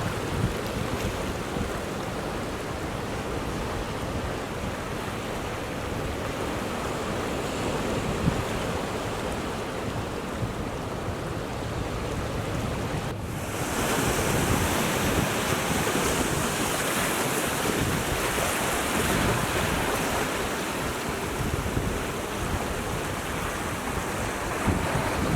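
Ocean surf washing continuously against a rocky shore, with wind buffeting the microphone. About 13 seconds in, the sound changes abruptly and becomes louder and brighter.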